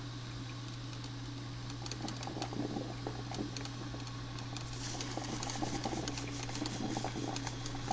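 Black & Decker thermal carafe drip coffee maker brewing: irregular popping and sputtering as the water is heated and pushed up through the machine, over a steady low hum.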